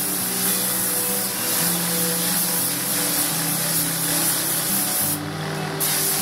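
Compressed-air paint spray gun hissing steadily as it sprays paint onto a car body. The hiss breaks off briefly about five seconds in when the trigger is let go, then starts again.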